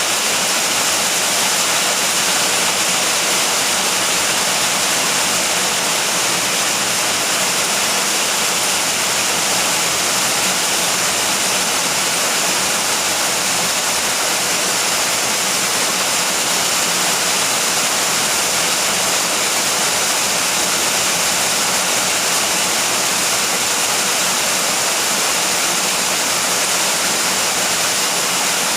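Steady rain falling, a dense even hiss with no thunder.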